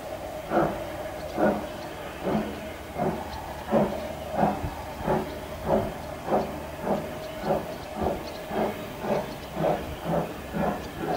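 Steam locomotive working hard and accelerating away, its exhaust beats coming about one a second at first and quickening to about two a second.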